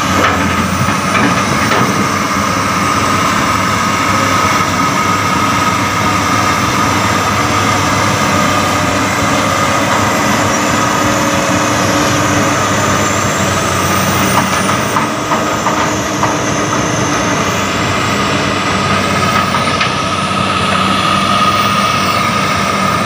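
Diesel engines of heavy crawler excavators running steadily under load as one drags a sunken excavator out of the mud, with a steady high whine over the low engine rumble.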